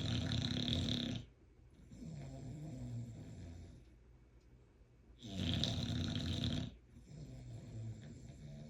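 Bulldog snoring in slow, even breaths. Each breath is a loud, harsh snore of about a second, followed by a quieter, lower droning snore of about two seconds. The cycle comes twice, about five seconds apart.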